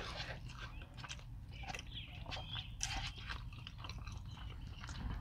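Mouth sounds of someone chewing food close to a clip-on microphone: soft wet chewing with many small irregular clicks and crunches.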